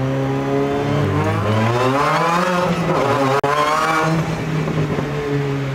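Twin-engine 2002 Mini Cooper race car, with one engine in front and one in the rear, driven hard. The engine note climbs in pitch as it accelerates, cuts out for an instant about three and a half seconds in, then runs on at a steadier, slowly falling pitch.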